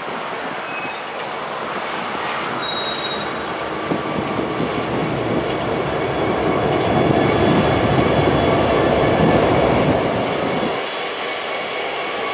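Freight train cars rolling past on the yard tracks, wheels clattering, with a brief wheel squeal about three seconds in. The noise builds to its loudest about two-thirds of the way through, then eases off shortly before the end.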